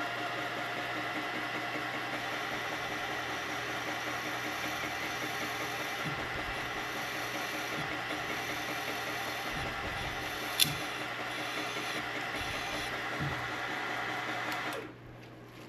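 Milling machine spindle running at a steady whine while an end mill plunges into a carbon fiber handguard. There is a sharp click about two-thirds of the way through, and the whine stops abruptly shortly before the end.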